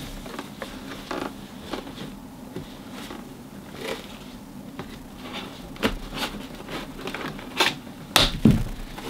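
Cardboard and plastic toy packaging of a boxed action figure being handled with gloved hands: scattered taps, clicks and rustles, more frequent from about six seconds in, with the loudest near the end.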